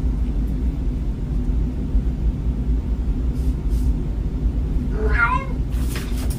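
A domestic cat gives a single meow with a wavering pitch about five seconds in, over a steady low rumble of background noise.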